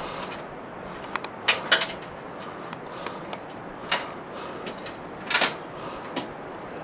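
Footsteps clacking on a metal ladder-bridge as a mountain biker climbs it carrying the bike, irregular sharp knocks with a pair about one and a half seconds in and a cluster a little past five seconds, over a steady hiss.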